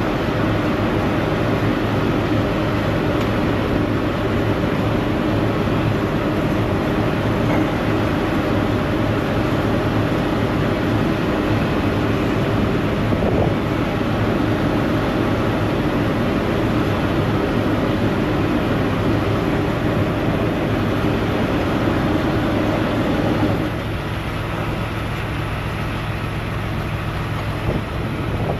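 A heavy diesel truck engine running steadily at idle, with a low steady hum under a broad rumble. It becomes somewhat quieter about 23 seconds in.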